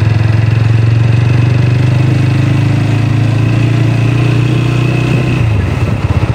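Motorcycle engine running steadily as the bike rides along, dying away about five and a half seconds in as the throttle is eased off.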